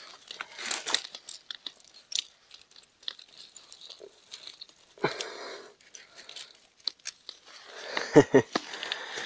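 Loose beach pebbles crunching and clicking under footsteps and as a caught fish is set down on them, in scattered bursts, with a longer scrape about five seconds in and a cluster of louder crunches near the end.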